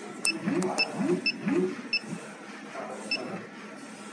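A soldering robot's controller beeps briefly with each jog-button press, about six times. Its axis motors give three or four short whirs that rise quickly in pitch in the first two seconds as the soldering head is nudged into position.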